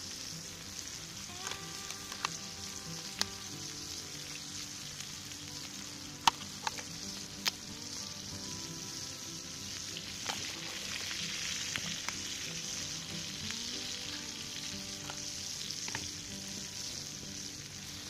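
Eggs frying in butter with bacon, tomato and onion in a pan over an open log fire: a steady sizzle that grows louder about ten seconds in, with a few sharp clicks in the first half.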